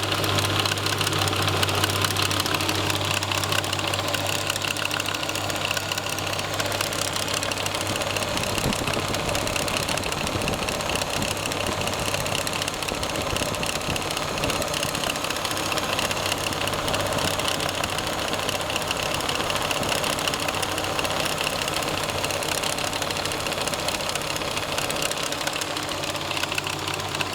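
Subaru SVX's electric radiator fan running steadily with an abnormal noise, a fast fine rattle over a constant hum, with the engine idling beneath it.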